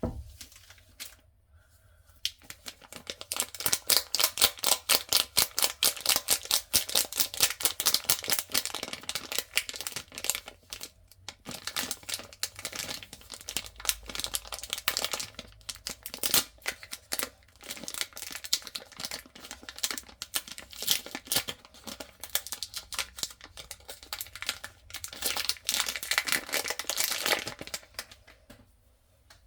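Soap bar wrappers being torn open and crinkled by hand: a dense, continuous run of sharp crackles and rips that starts about two seconds in and stops near the end, after a single click at the very start.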